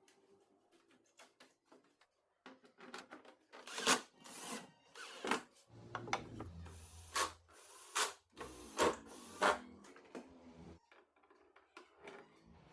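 Irregular clicks, knocks and scraping of parts and tools being handled, with a short low hum about six seconds in.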